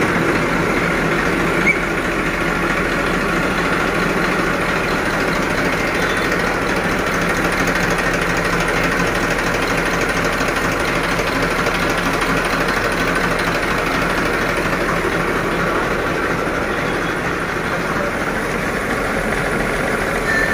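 Tractor engine running steadily, driving a tractor-mounted sprayer's pump through the PTO shaft and V-belts.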